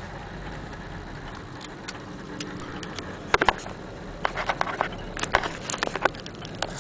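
Antique Kienzle Vienna wall clock movement ticking faintly. From about halfway it is overtaken by a run of louder, sharp, irregular clicks and knocks.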